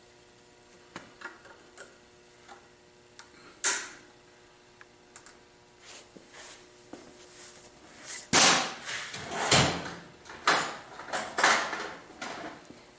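Hand tools working on the metal of an air compressor pump: scattered light clicks and one sharper knock, then a run of louder scraping and clanking from about eight seconds in.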